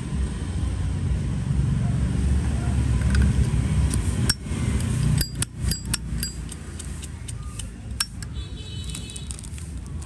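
Brass Zippo lighter lid clicking open and snapping shut, a run of sharp metallic clinks from about four to eight seconds in, over a steady low background rumble.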